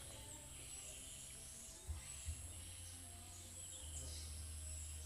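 Forest pond ambience: a steady high-pitched insect drone with scattered bird chirps over a low rumble, and two soft thumps about two seconds in.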